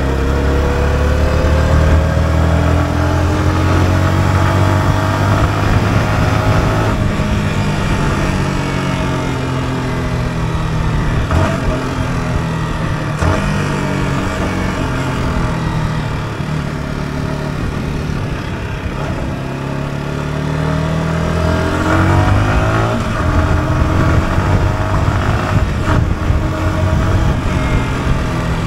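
Yamaha R125's single-cylinder four-stroke engine heard from the saddle while riding. Its pitch rises repeatedly under throttle and drops back, easing off in the middle and pulling again near the end.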